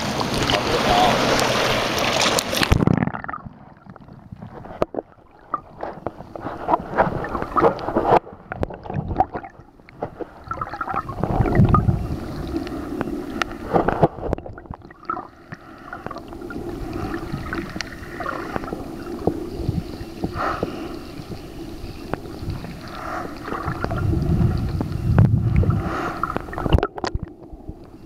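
Shallow lagoon water lapping and splashing in open air, then, about three seconds in, an abrupt change to muffled underwater sound: low rumbling water movement with scattered clicks and knocks.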